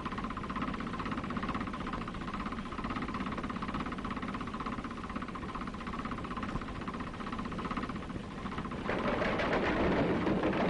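Steady mechanical running noise with a fast, even pulsing. About nine seconds in, a louder rushing noise sets in.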